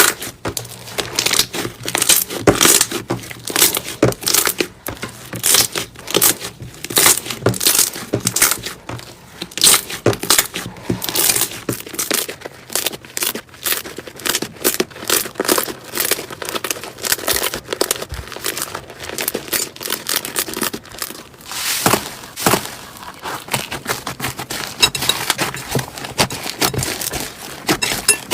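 Slime being squeezed and worked by hand, giving a dense, steady run of crackling pops and clicks.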